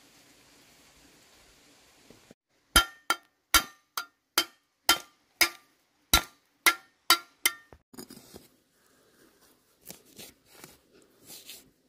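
About eleven sharp metal strikes in a steady rhythm, roughly two a second, each with a short ring, starting about three seconds in; a few softer knocks and clinks follow.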